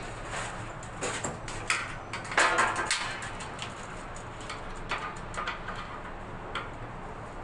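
Scattered clicks, knocks and scrapes of a shower enclosure's metal frame being fitted against the wall, with a louder cluster of knocks about two and a half seconds in.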